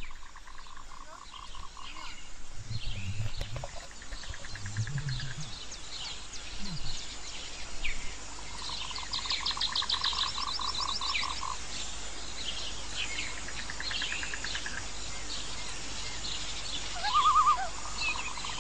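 Outdoor animal chorus: low frog-like croaks in the first few seconds, and rapid pulsed chirping trills, some high and some lower, repeating throughout.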